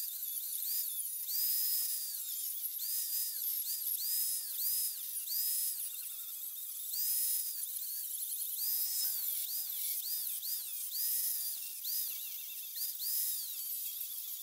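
Corded angle grinder with a cut-off disc cutting through a steel mower deck: a high whine that dips in pitch and climbs back again and again as the disc bites into the metal and frees up, with a hissy grinding rasp on top.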